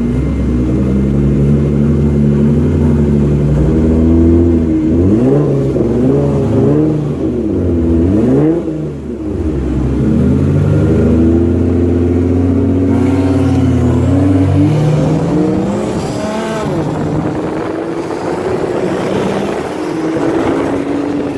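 Car engine held at steady revs, then accelerating hard from a standing start in a race from a traffic light. The revs climb and drop back with each gear change, several times over, then run steadier and rise again later.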